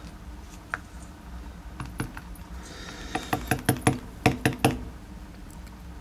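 Small metal lock parts clicking as a DOM IX dimple lock cylinder is handled and disassembled. There is a single click about a second in, then a quick run of about ten light, sharp clicks in the middle.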